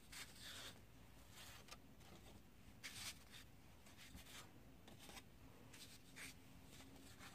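Near silence with several faint rustles of sheets of painting paper being handled and slid across a table.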